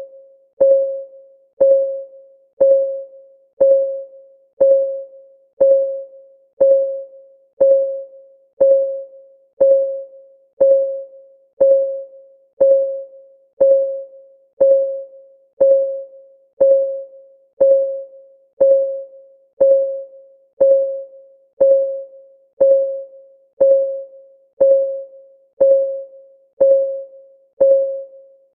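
Countdown timer's ticking sound: a single clear, mid-pitched tick struck once a second, each dying away quickly, keeping an even beat.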